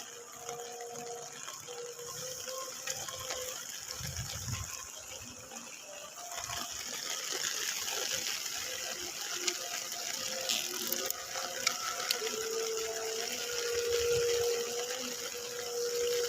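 Steady rushing of water with rain, the water running high, a little louder after about six seconds. A faint steady hum comes and goes under it.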